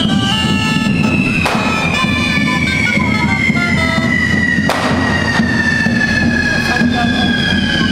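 A reed wind instrument playing a tune in the street, over a long whistle that slides slowly down in pitch. Three sharp firecracker bangs go off, about one and a half seconds in and twice near the middle.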